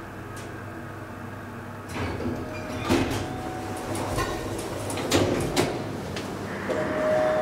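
A KONE roped-hydraulic elevator's sliding doors running, with several clunks and knocks. Near the end a steady whine sets in and the sound grows louder as the hydraulic pump starts the car moving.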